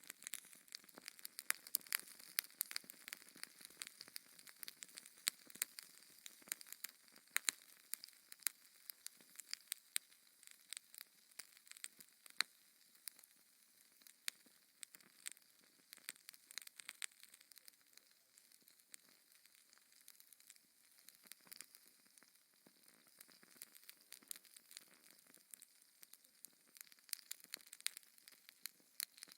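Wood fire burning in a fireplace: a faint hiss with many irregular sharp crackles and pops, thicker in the first half, then thinning briefly before picking up again.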